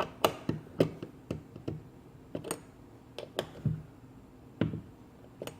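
Irregular sharp clicks and taps, about fifteen in a few seconds, from a hand tool working the screws that hold a motorcycle fuel petcock to the gas tank as they are tightened.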